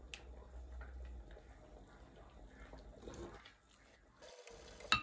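Faint sounds of thick blended soup being ladled from a metal ladle into a ceramic bowl, with one sharp click near the end.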